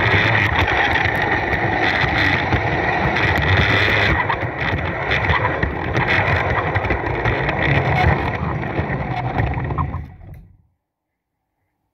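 Bachmann large scale (G scale) Percy locomotive running along the garden track: a steady electric motor whine over the rumble of wheels on rail, picked up close from the wagon in front of it. The sound cuts out abruptly about ten and a half seconds in.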